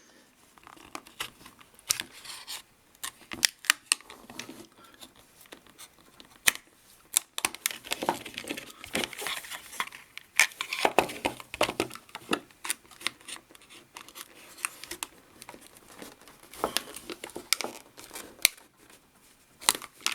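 Knife packaging being cut and torn open with a small pocket knife: irregular crackling, sharp clicks and short tearing rasps.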